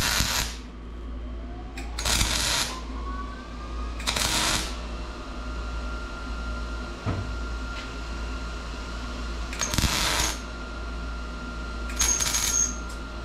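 Welder laying tack welds on a custom exhaust pipe under the car: five short welding bursts of about half a second each, the first three about two seconds apart and two more near the end, over a steady low hum.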